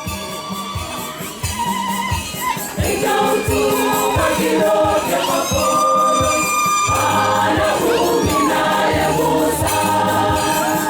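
Church choir singing a hymn in several voices over a steady drum beat and jingling percussion. The singing is thinner at first and fills out about three seconds in.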